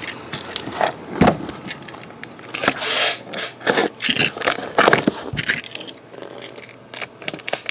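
A utility knife slicing through the packing tape and corrugated cardboard of a sealed shipping case, with a string of sharp scrapes, cracks and crinkles as the case is cut and its flaps are pulled open, and a longer tearing stretch about three seconds in.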